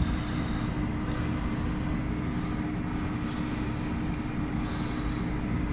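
Steady whir of a running fan with a constant low hum underneath, unchanging throughout.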